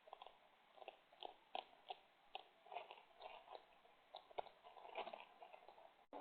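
Raccoon and opossum eating, with irregular crunching and chewing bites, several a second.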